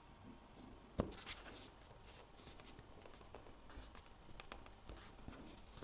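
Faint clicks and rustles of small objects being handled, with one sharp click about a second in and lighter scattered clicks after it.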